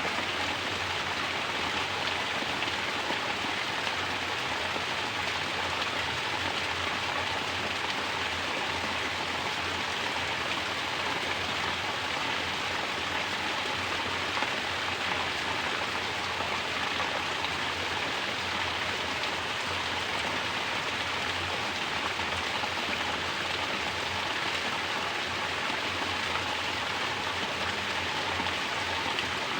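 Mountain water pouring steadily from a natural shower, splashing continuously with no change in strength.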